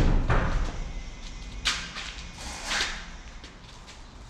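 A heavy truck wheel and tyre being worked off its hub by hand: a thud at the start, then two short scraping swishes about 1.7 and 2.7 seconds in.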